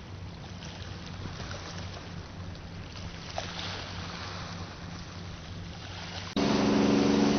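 Steady low mechanical hum with faint outdoor noise; about six seconds in it cuts abruptly to a much louder, steady hum.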